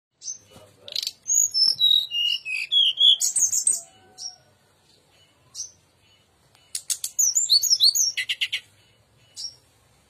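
Brown-chested jungle flycatcher singing: two rapid phrases of clear whistled notes with single short notes between them. The first phrase steps down in pitch. The second is a jumble of rising and falling notes that ends in a fast trill.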